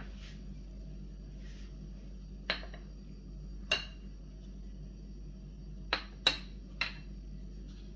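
Kitchen dishware and utensils clinking as they are handled: about five sharp, ringing clinks of glass or china, two of them close together around the middle, over a steady low hum.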